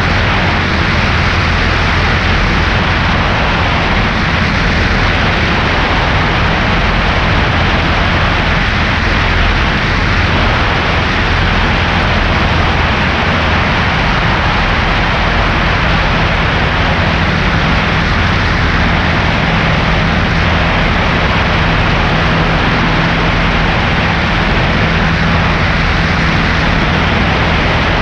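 Cessna 140A's light-aircraft engine and propeller running at a steady speed, a loud unchanging drone with a rushing noise over it. The engine has a newly installed cylinder that is being broken in.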